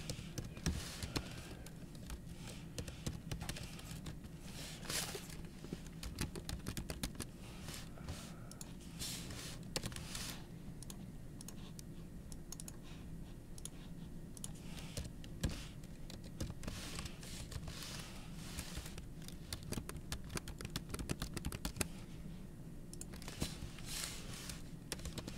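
Computer keyboard typing, keystrokes coming in irregular clusters with short pauses, over a steady low hum.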